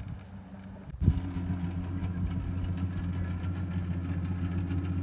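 Small motorboat's engine idling steadily. It comes in suddenly and louder about a second in, over a fainter low hum before it.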